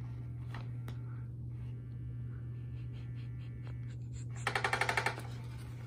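Motorized electronic cat toy under a nylon tarp, with a few faint knocks and rustles as the cat paws and noses at it. About four and a half seconds in comes a quick run of rapid clicks from the toy's mechanism, lasting under a second, over a steady low hum.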